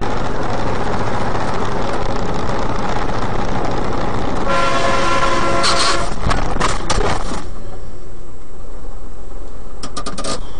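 Loud engine and road noise heard inside the cab of a truck-mounted crane on the move. A horn sounds for about a second and a half a few seconds in. Several sharp knocks follow, and there are more knocks near the end.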